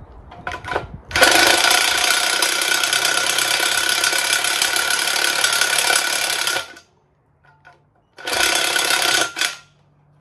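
Cordless drill boring out the hole in an engine valve cover to take a fitting: a steady, even-pitched run of about five seconds, then a second, shorter burst of about a second near the end.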